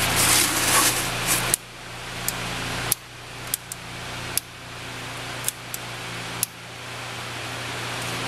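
Crumpled paper rustling under a hand for about the first second and a half, then a handheld torch lighter hissing, with about nine sharp clicks of its trigger and igniter. After several of the clicks the hiss drops suddenly and builds back up.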